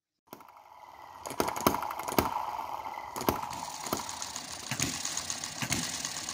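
A small model engine running, with a sharp knock every half second to a second over a steady mechanical hum.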